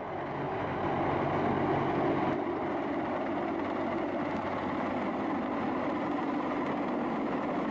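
Mi-26 heavy-lift helicopter running, a steady dense noise of its turbine engines and rotor that grows a little louder over the first second or two, then holds level.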